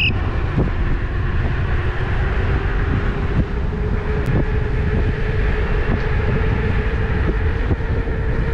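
Electric unicycle being ridden: a steady motor whine rising slowly and slightly in pitch over a heavy rumble of wind and road noise.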